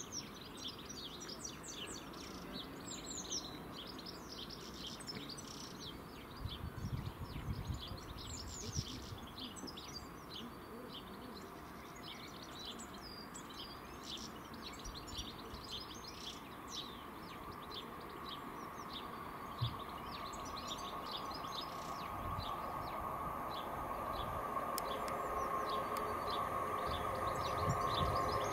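Birds singing and chirping throughout, while a Class 321 electric multiple unit approaches: its hum comes in about halfway through and grows steadily louder toward the end.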